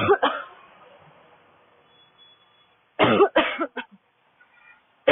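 A woman's dry, barking cough: two coughs at the start, then a quick run of about four coughs about three seconds in, and another beginning right at the end.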